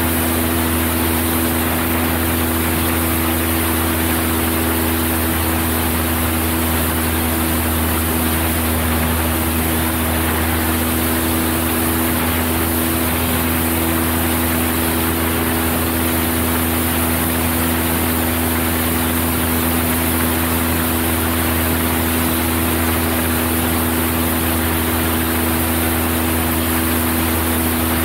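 Cessna 172's piston engine and propeller droning steadily in flight, with constant low tones under an even hiss.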